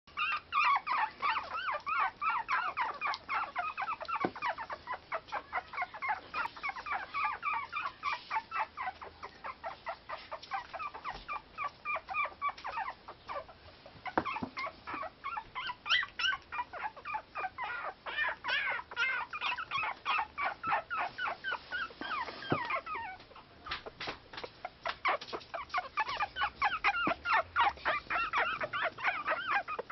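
A litter of three-week-old Yorkshire terrier puppies squeaking and whimpering: many short, high-pitched cries in quick succession, several puppies at once, with a brief lull about halfway through.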